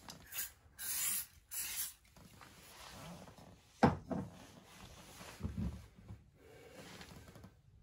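Three short hissing sprays from an aerosol can in the first two seconds, then a single sharp knock near four seconds and a few faint handling thuds.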